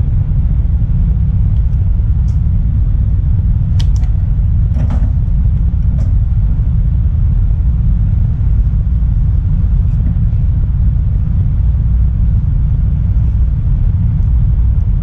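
Steady low rumble of a semi-truck's engine and road noise heard inside the cab, with a few faint clicks about four to five seconds in.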